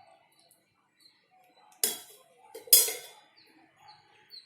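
A steel spoon knocking twice against a metal cooking pan, two sharp ringing clinks about a second apart, as oil is spooned over the fish. Small bird chirps repeat quietly all the while.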